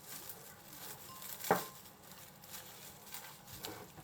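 Quiet kitchen handling: soft taps and rustles, with one sharper knock about a second and a half in.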